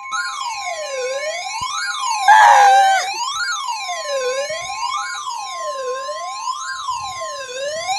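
Emergency alert siren wailing, its pitch rising and falling about every second and a half, over a steady high alert tone. A brief louder tone glides down about two seconds in.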